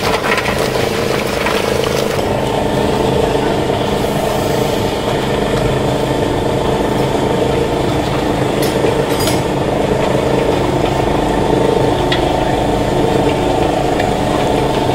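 Motor-driven rotary chekku oil press running steadily, its pestle turning and crushing dried coconut (copra) in the mortar to press out coconut oil, with a constant machine hum.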